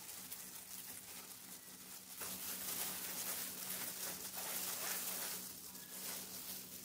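Gloved fingers rubbing damp rice-flour mixture through a stainless-steel mesh sieve: a soft, gritty rasping that grows a little louder from about two seconds in.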